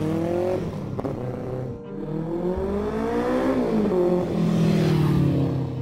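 BMW K100 cafe racer's inline-four engine revving as the bike accelerates. Its note climbs in pitch, climbs again past the middle, drops back and then holds steady.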